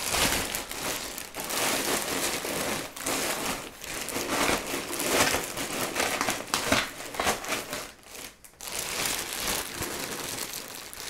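A large plastic bag packed with ice and rock salt, holding a smaller bag of cream, crinkling as it is handled and its top twisted shut, with a short lull about eight seconds in.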